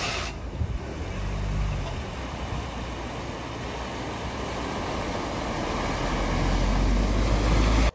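Motor vehicle engine running as it drives past, over a steady rushing noise, growing louder toward the end before cutting off suddenly.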